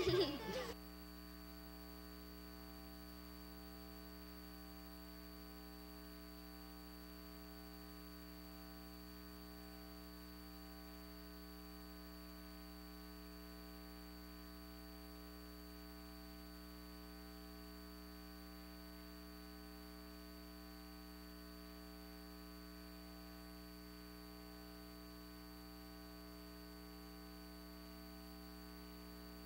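A burst of music cuts off within the first second, leaving a faint, steady electrical mains hum with a thin high whine: background hum on the audio track of an old broadcast tape.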